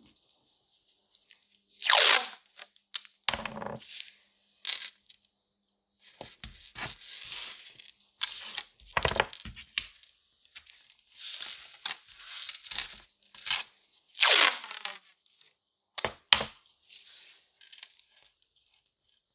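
Paper being handled close to the microphone: irregular crinkling, rustling and tearing sounds with short silent gaps. The loudest tearing strokes come about two seconds in and again about fourteen seconds in.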